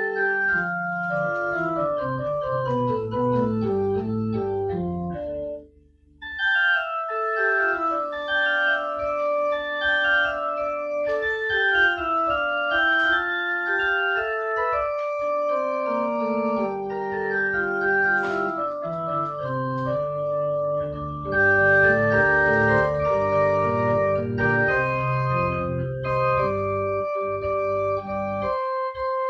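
Digital keyboard played with an organ voice: a melody over held chords, each note sustained steadily without fading. The playing breaks off for a moment about six seconds in, then resumes and grows louder after about twenty seconds.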